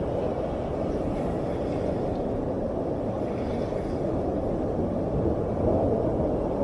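Ocean surf washing in on the beach: a steady low rumble of breaking waves that swells slightly near the end.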